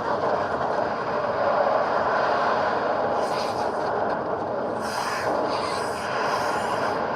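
Film tornado sound effect: a dense, steady wind rumble like a passing freight train, with bursts of hissing, higher-pitched noise about three seconds in and again from about five to seven seconds.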